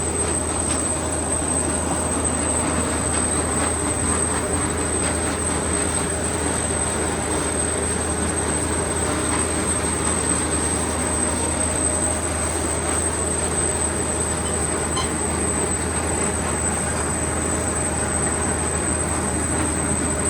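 Grimme Varitron 270 self-propelled potato harvester running steadily while lifting, a continuous mechanical clatter and rattle with a constant high-pitched whine over it.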